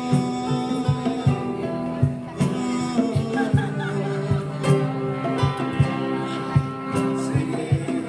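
Small live band playing: strummed acoustic guitar and a male voice singing over a drum kit keeping a steady beat of about two hits a second.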